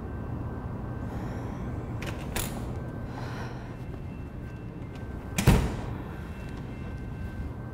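Steel door in a brick wall opening with a sharp latch click about two seconds in, then swinging shut with a loud slam about five and a half seconds in, over a steady low traffic hum.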